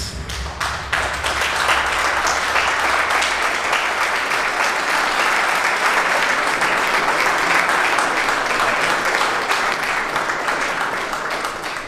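Audience applauding: a dense patter of many hands clapping that swells over the first second or two, holds steady, and starts to thin near the end. The low rumble of the show's music dies away in the first few seconds.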